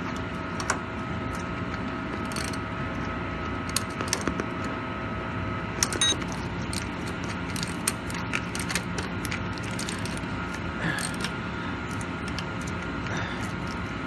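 Irregular metallic clicks and short clicking runs of a wrench or ratchet on the bolts of a Zamboni's horizontal auger chain mount as they are tightened, over a steady machine hum.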